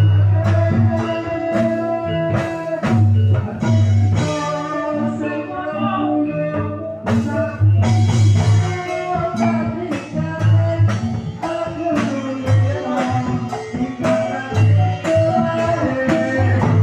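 Jaranan music played loud, with drums keeping a steady beat, melodic instruments and singing.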